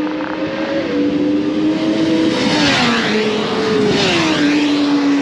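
Racing motorcycle engines running at speed on a circuit: a steady high engine note that twice drops in pitch as machines pass by, about halfway through and again near the end.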